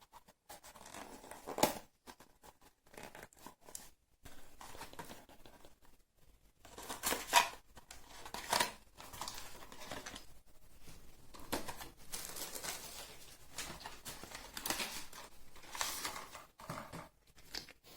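Cardboard box and product packaging being opened by hand: intermittent tearing, crinkling and rustling with scattered clicks, a few louder rips about 2, 7 and 9 seconds in.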